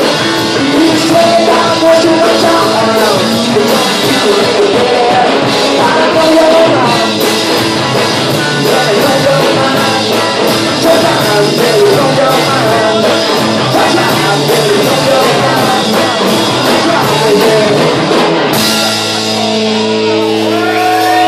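Live rock band playing: electric guitars and drums with a sung lead vocal. About eighteen seconds in, the drum beat stops and a held chord rings out under the voice.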